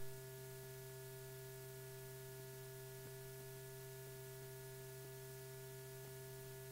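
Faint, steady electrical hum and hiss from an old film soundtrack, with faint ticks about once a second.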